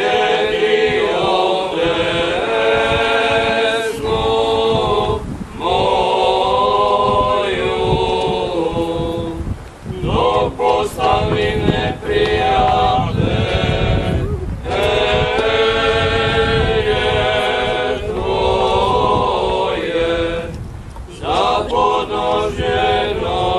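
Church choir of men and women singing a hymn in long held phrases, with brief pauses between them.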